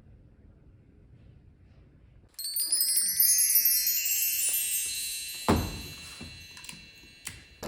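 A chime tree (bar chimes) swept once, a cascade of many high ringing tones entering one after another and stepping down in pitch, then ringing on and slowly fading. A short dull thump about five and a half seconds in.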